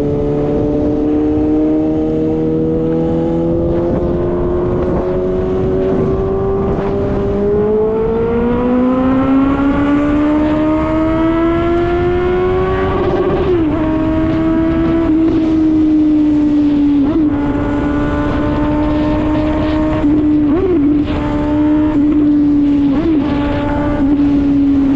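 Suzuki GSX-S750 inline-four engine, loud through a JBK exhaust tip with the baffle removed, pulling under way. About a third of the way in, the revs climb smoothly for several seconds, then fall back sharply. After that the note holds fairly steady with a few brief wobbles.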